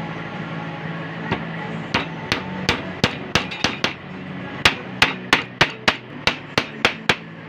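Hammer blows on wood during the assembly of a glued cabinet door: about three sharp strikes a second, in two runs separated by a brief pause.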